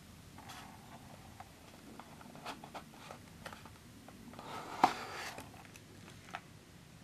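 Small paperboard gift box handled and opened by hand, its inner tray sliding out of the sleeve: light scrapes and taps of cardboard, with a longer rustling slide and one sharp tap about five seconds in, the loudest sound.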